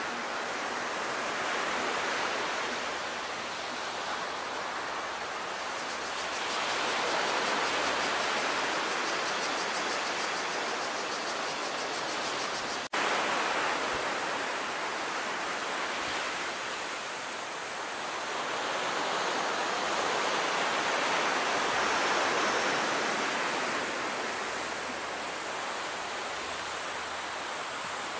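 Sea surf washing against a concrete breakwater: a steady rushing that swells and fades every several seconds, with a momentary break about 13 seconds in.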